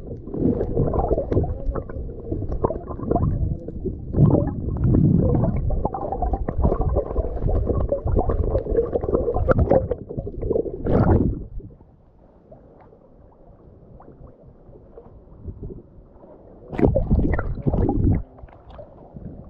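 Muffled water gurgling and sloshing against a camera held underwater, loud and low for the first dozen seconds, then dropping away. A short burst of splashing comes near the end as the camera meets the surface.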